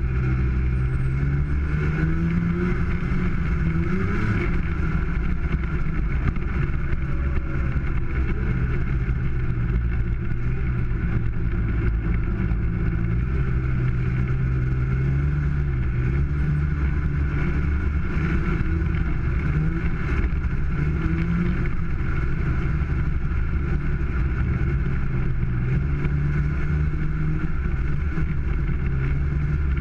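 1995 Polaris Indy 500 snowmobile's two-stroke twin engine running under way, its pitch rising and falling a little with the throttle.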